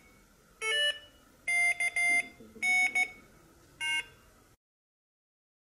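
Morse code beeping from the Morserino-32's loudspeaker: groups of short and long beeps at one mid pitch, with two brief groups of tones at other pitches between them, about 0.7 s and 4 s in. This is the echo-trainer exchange, in which the device sends letters that are keyed back on the paddle and it answers OK or error. The sound cuts off about four and a half seconds in.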